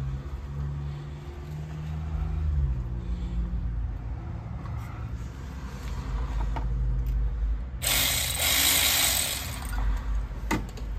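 A socket ratchet working a spark plug in the cylinder head of a Dodge Magnum engine, with clicking and mechanical whirring. A loud burst of hiss comes about eight seconds in and lasts over a second.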